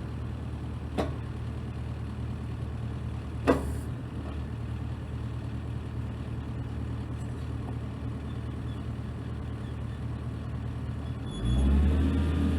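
New Holland E55BX mini excavator's diesel engine idling steadily, with two sharp clicks about a second and three and a half seconds in. Near the end the engine speeds up and runs louder.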